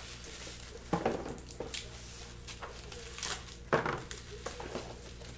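Light clatter and knocks from cards and hard plastic card holders being handled on a table, with two louder knocks about a second in and near four seconds.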